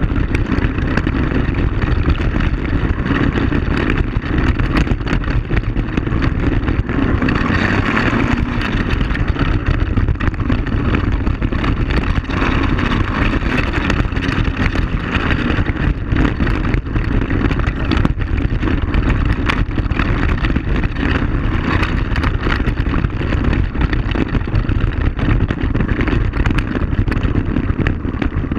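ATV engine running steadily while riding a rough gravel trail, with frequent rattles and knocks from the bumpy ride.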